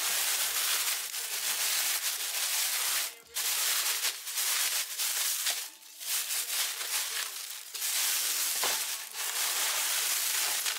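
Thin plastic carrier bag crinkling and rustling close to the microphone as hands rummage in it, with brief lulls about three, six and nine seconds in.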